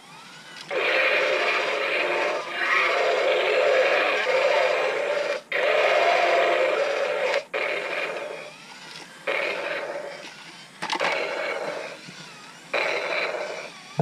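Remote-control T-Rex toy playing its electronic roar sound effects through its small built-in speaker. There are about six roars, each one to five seconds long, with short breaks between them.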